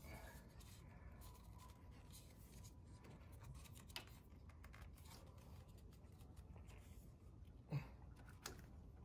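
Faint handling noises: small clicks and light knocks as an oil cooler with a cooling fan attached is worked into place under a motorcycle engine, with one sharper knock near the end.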